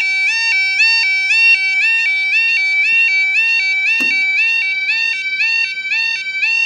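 Level crossing warning alarm sounding a rapid, even two-tone yodel, warning road users that the barriers are lowering for an approaching train. A single sharp knock comes about four seconds in.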